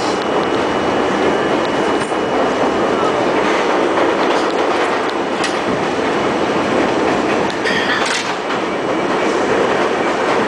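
Inside an R42 subway car running along elevated track: a steady rumble of steel wheels on rail, with rail-joint clicks every second or two and a brief harsher clatter about eight seconds in.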